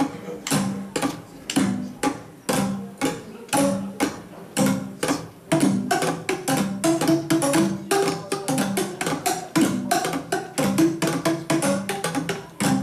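Boomwhackers, tuned plastic percussion tubes, struck in rhythm to play a tune as hollow pitched pops, about two strikes a second at first and busier from about halfway through.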